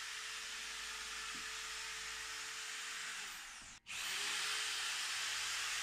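Bosch GSG electric foam cutter running steadily as its reciprocating blades cut through soft two-inch upholstery foam along the edge of a wooden headboard. It stops briefly a little under four seconds in, then runs again.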